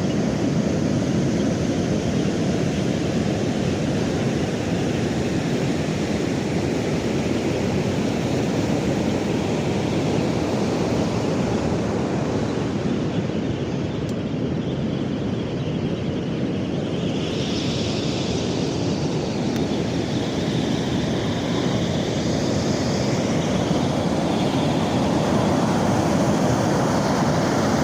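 Pacific Ocean surf, a steady continuous rush of breaking waves.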